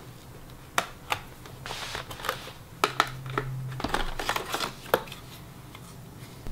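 Scattered sharp clicks and light plastic knocks from an old Dell laptop's case as its panels and hard-drive caddy are taken off with a small screwdriver.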